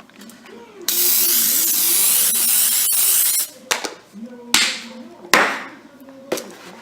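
Aerosol cooking spray hissing steadily for about two and a half seconds as it coats a springform pan, followed by a few sharp knocks.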